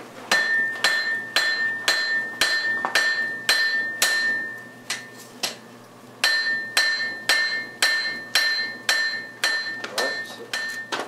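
Hand hammer striking red-hot steel on an anvil at about two blows a second, the anvil ringing between blows, with a short pause about halfway through. The smith is drawing a taper on a carbon steel bit.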